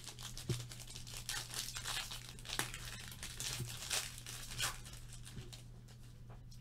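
A trading card pack's wrapper being torn open and crinkled by hand, a run of irregular crackling and tearing rustles that eases off near the end.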